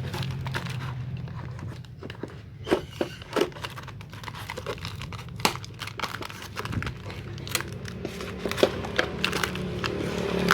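Packaging crinkling and tearing as it is opened by hand, with irregular crackles and a few louder snaps.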